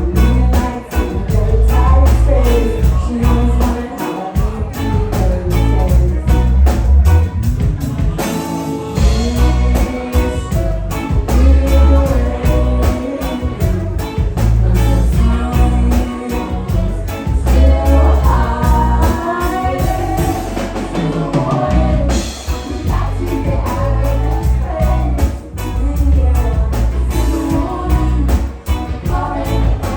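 Live rock band playing with drums, bass, guitar, saxophone and keys, under female lead vocals singing.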